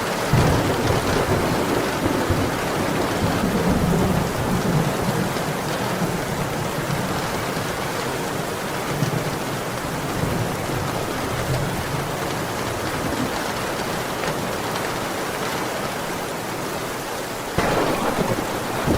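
Steady heavy rain with low rumbles of thunder rolling under it in the first few seconds. The rain grows suddenly louder near the end.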